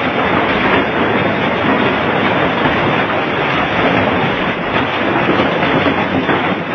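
Heavy rain mixed with hailstones pelting the ground and foliage: a dense, steady hiss.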